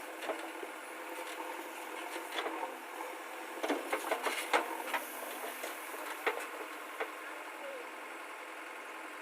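An engine running steadily, with a cluster of sharp knocks and clicks about four seconds in and a couple more a little later.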